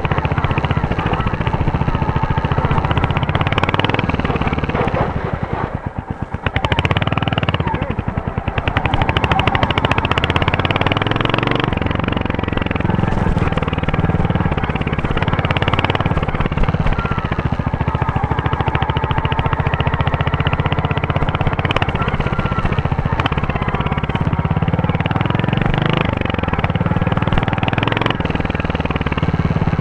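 Royal Enfield Hunter 350's 349 cc single-cylinder engine running with a steady exhaust thump. About six seconds in it drops away briefly, then climbs back as the revs rise again.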